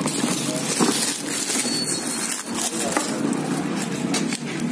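Clear plastic wrapping crinkling and a cardboard box rustling as they are handled, in irregular crackles over a steady noisy background.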